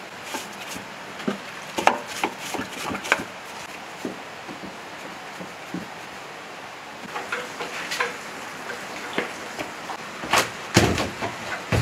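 Scattered clinks and knocks of disassembled diesel engine parts being handled and set down into a plastic crate, with a cluster of louder, heavier knocks near the end as the bare engine block is handled.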